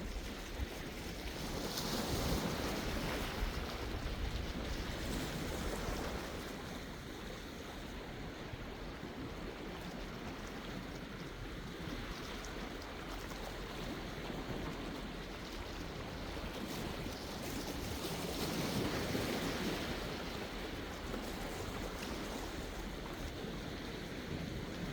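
Sea waves washing in, a steady rush that swells twice, about two seconds in and again near the end, over a low rumble of wind on the microphone.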